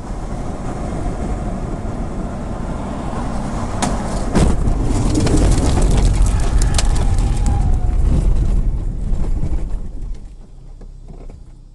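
Car driving, heard from a dashcam inside the cabin: steady tyre and road rumble, then from about four seconds in a much louder, heavy rumbling with many sharp clatters as the car runs off the road across a ploughed field and dirt and stones strike the body. The noise dies down over the last two seconds.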